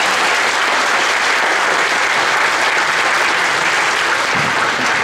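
A crowd applauding, dense clapping that stays loud and steady.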